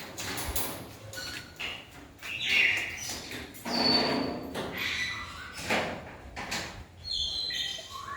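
Cage birds squawking and chirping, many short harsh calls and whistled notes overlapping throughout, the loudest squawks about two and a half, four and six seconds in.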